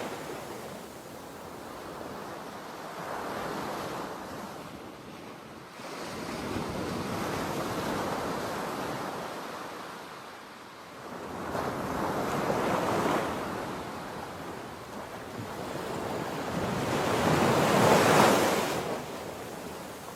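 Sea waves breaking and washing ashore, the surf swelling and ebbing in slow surges several seconds apart, the loudest near the end.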